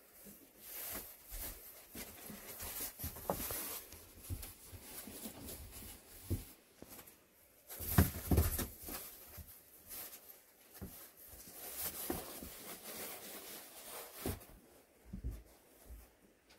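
Two kittens play-fighting on a foam mat: irregular soft thumps, scuffles and rustling of paws and bodies, with a louder cluster of thumps about eight seconds in.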